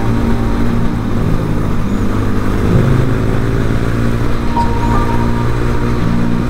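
Background music with a simple stepping melody, over the steady running of a motorcycle engine and wind noise while riding.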